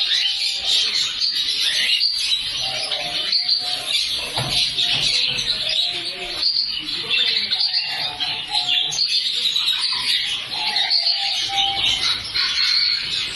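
Dense chorus of many small birds chirping and twittering together without a break, typical of a room full of caged songbirds.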